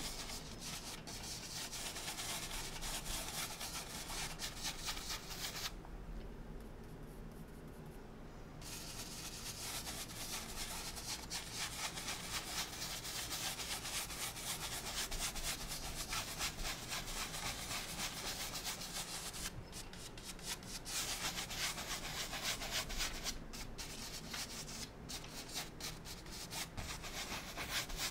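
Wide bristle brush scrubbing oil paint across a canvas in quick repeated strokes, laying in the sky wet-on-wet. The strokes stop for about two seconds around six seconds in, and ease briefly again near twenty seconds.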